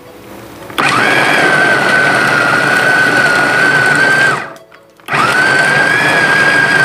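Kova Kraser 3L electric food chopper running, grinding chicken and shrimp into a paste: a steady motor whine that starts about a second in, stops briefly after about three and a half seconds, and starts again.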